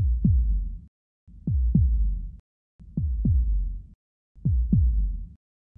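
Heartbeat-style sound effect: pairs of deep thumps that fall in pitch, about one pair every one and a half seconds, each over a low rumble.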